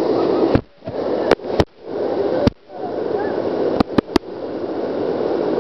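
Steady rushing of a waterfall. It is broken several times by sharp clicks, where the sound briefly drops out.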